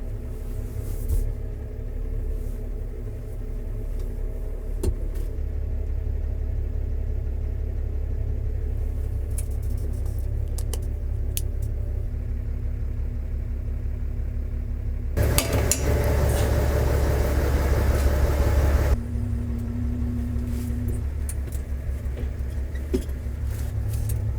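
New Holland TS135A tractor's diesel engine running steadily under a front-end loader job, with a few sharp clanks. Past the middle it grows much louder for about four seconds, then drops back to its earlier level.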